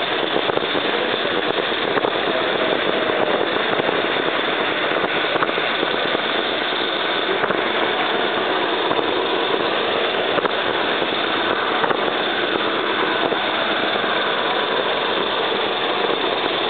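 Large-scale model train running round its track, heard from one of its own wagons: a steady rattling rumble of wheels and cars on the rails.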